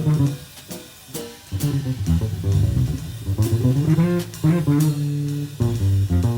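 Background music: plucked guitar and bass over a drum kit.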